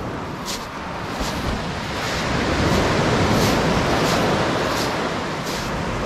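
Footsteps crunching on beach pebbles at a steady walking pace, over the wash of sea waves on a shingle shore. The surf swells louder about two seconds in and eases a little near the end.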